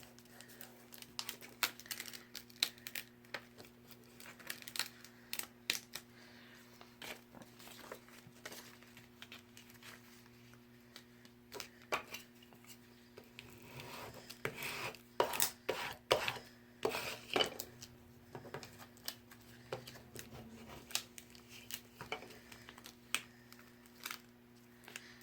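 Paper and vinyl craft pieces being handled: irregular rustling, crinkling and tearing-like peels with small taps, busiest a little past halfway.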